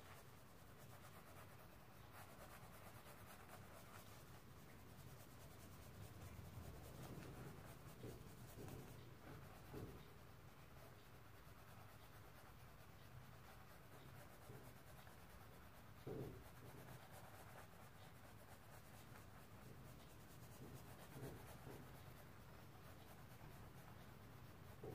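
Faint scratching of a bristle paintbrush blending oil paint on canvas, with a few soft taps now and then.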